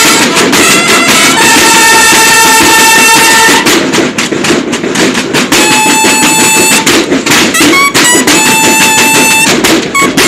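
A Mexican banda de guerra playing: field snare drums beating a march and bugles sounding long held notes together. The bugles drop out for about a second and a half partway through, leaving the drums alone, then come back in.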